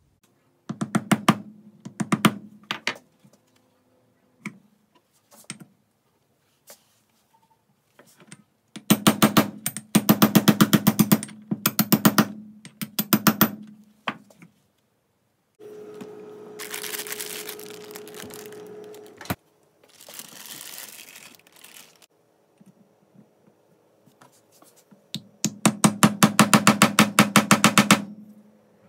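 Claw hammer tapping a wooden block set on a Vittorazi Atom80 reduction gearbox case, driving a part into its seat: three runs of rapid, sharp taps, with a few seconds of hissing noise between the second and third runs.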